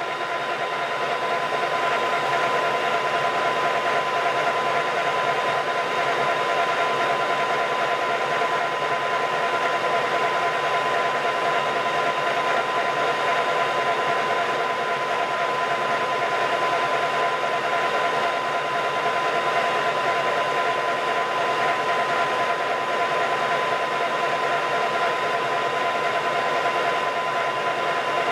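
Colchester Master 1200 lathe running with its power cross feed (X-axis) engaged: a steady, even mechanical whine over a hum.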